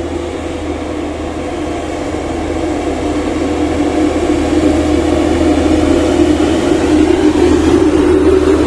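A heavy truck's diesel engine running on the road, a steady low drone that grows slowly louder as it comes closer.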